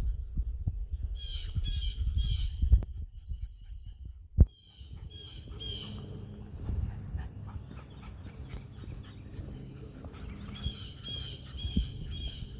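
A bird giving harsh calls in quick runs of three or four, three times over, above a steady high-pitched tone and a low rumble on the microphone. A single sharp knock about four seconds in.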